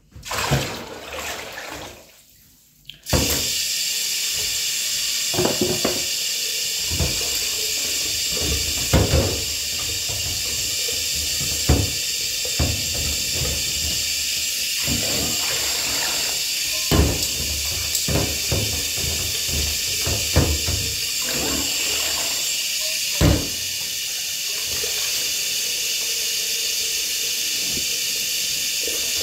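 Tap water starts running suddenly about three seconds in and keeps running steadily into a sink, with scattered knocks and clatter on top.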